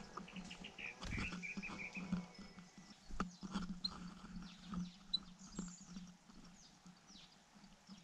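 White-throated fantail nestlings giving thin, high begging cheeps as the adult feeds them, with knocks and rustles from the adult moving on the nest. A low pulsing drone runs underneath.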